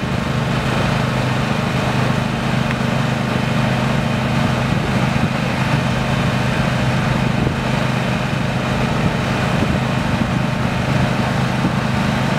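Engine of a heavy truck idling steadily with an even low hum.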